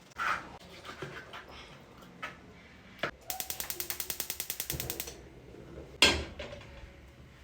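A quick, even run of mechanical clicks, about twelve a second, lasting nearly two seconds, with a sharp knock just after the start and a louder one about six seconds in.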